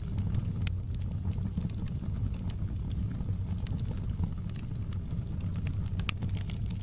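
Wood fire burning in a fireplace: a steady low rumble of the flames with scattered sharp crackles and pops, which come thicker near the end.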